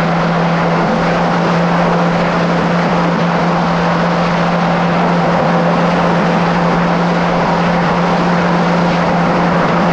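2017 Kawasaki SX-R 1500 stand-up jet ski's four-stroke inline-four running at a steady speed, a constant engine drone under a loud rush of water spray and wind.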